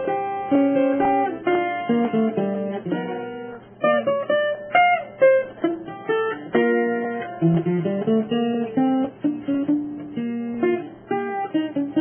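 Background music: a plucked guitar tune, note by note, with a brief dip about a third of the way in.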